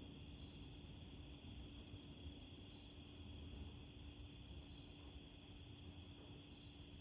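Faint night ambience: crickets trilling steadily, with a low, unsteady rumble of wind underneath.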